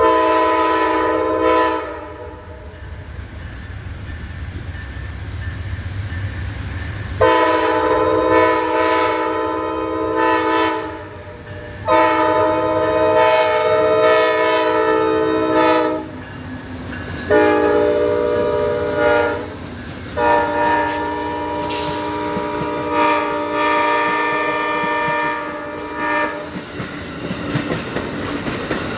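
Multi-chime air horn of an Amtrak GE Genesis P42DC diesel locomotive. After a short blast at the start, it sounds the grade-crossing signal: long, long, short, long, the last blast held about six seconds. A low diesel rumble runs underneath, and near the end the passenger cars clatter past over the rail joints.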